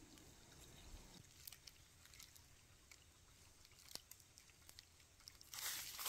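Faint crunching footsteps on dry ground and leaves, with a single sharper click about four seconds in; near the end a louder rustling noise sets in.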